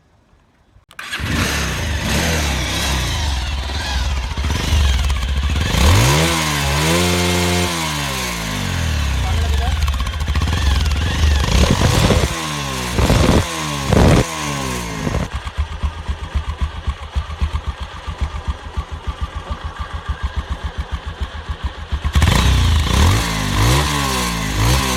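Bajaj Pulsar 220's single-cylinder engine starting about a second in, then idling and being revved up and back down several times, heard through the stock exhaust with its dB killer fitted. Between revs the idle is a steady, even pulse.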